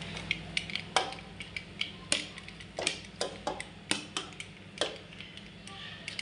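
Metal bowl and utensils knocking and scraping against a metal cooking pot as boiled rice is tipped in over a chicken layer: a string of irregular sharp clinks and knocks, the loudest about one and two seconds in.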